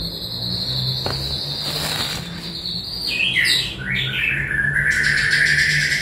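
Songbirds singing: a long, steady, high whistled note, a warbling downward phrase about three seconds in, then a lower held whistle.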